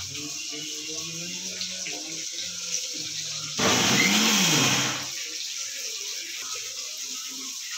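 Electric kitchen mixer grinder run in one short pulse of about a second and a half, its motor whine rising as it spins up and falling as it stops, grinding coconut chutney.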